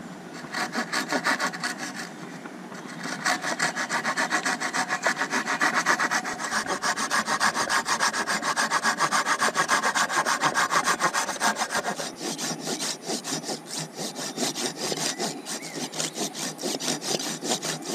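A Silky Pocketboy folding saw cutting through a thin wooden pole in steady, rapid back-and-forth strokes. The strokes become quieter and change in tone about two-thirds of the way through.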